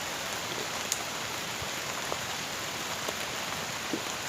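Steady rain falling on rainforest vegetation: an even hiss with scattered sharp ticks of single drops landing close by.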